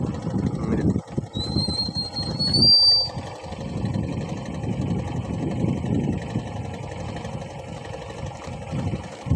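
A steady low rumble, with a thin high whistle that rises slowly in pitch for about two seconds, starting about a second in.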